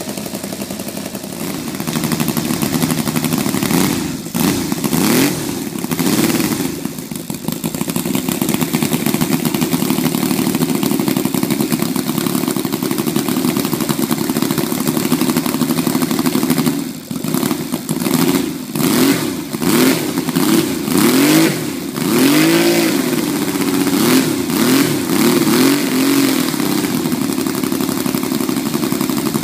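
Saito FA-90R3 three-cylinder four-stroke radial model aircraft engine running on a test stand. It is throttled back and opened up again several times, the pitch falling and rising, with most of the changes in the second half.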